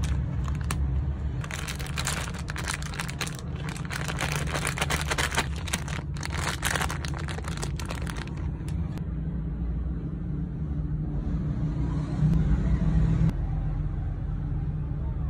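Plastic snack wrappers crinkling and rustling as they are handled, a dense crackle lasting several seconds that stops about two-thirds of the way through, over a steady low rumble.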